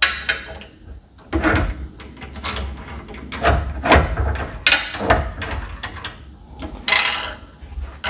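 Irregular metal knocks, clunks and scrapes as a stationary exercise bike's handlebar is fitted into its post and fastened with its knob.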